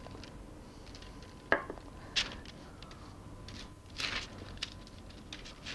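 Silicone pastry brush spreading melted butter over parchment paper on a metal baking sheet: a handful of short, soft swishes and taps at irregular intervals, with the brush also dipping into a small glass bowl of butter.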